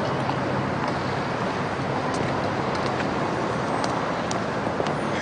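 Steady city traffic noise, an even hum of road traffic with a few faint clicks.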